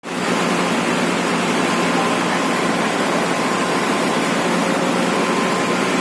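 Ferry boat under way: a steady, even rushing noise with a faint steady whine.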